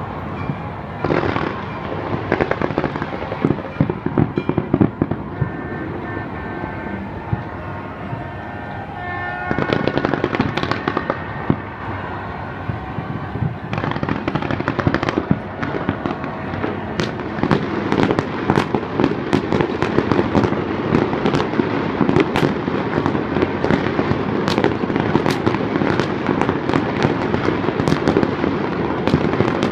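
Fireworks display going off continuously: a rumble of bursts with sharp cracks and pops, the cracks coming thicker and faster in the second half.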